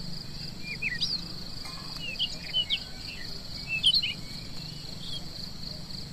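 Steady high-pitched drone of crickets or other insects, with birds giving short chirping calls, most of them about a second in and again between two and four seconds in.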